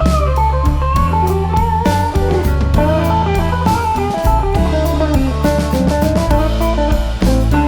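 Background music: electric guitar playing a melody over bass and a drum kit.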